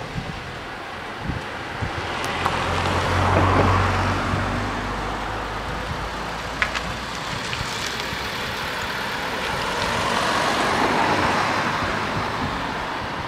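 Road vehicles passing one after another. The first swells up with a low engine hum about three to four seconds in, and the second passes near the end, a broader rush of engine and tyre noise.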